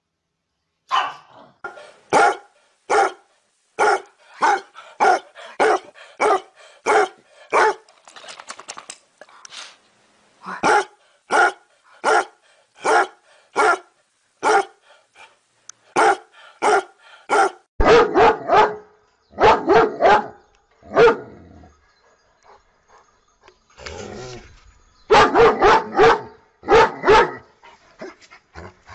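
Several dogs, among them a pug, a basset hound and a German Shepherd-type dog, barking in turn. First comes a steady run of single barks, about one every three-quarters of a second. After that come louder, quicker bunches of barks, with a short lull before the last bunch.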